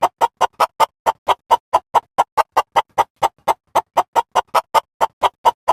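Background music: a rapid, even run of short staccato synthesizer notes, about five a second.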